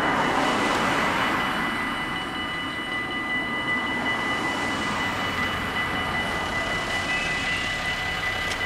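Dutch level-crossing bells ringing steadily. Under them, the rumble of a passing train fades away over the first few seconds.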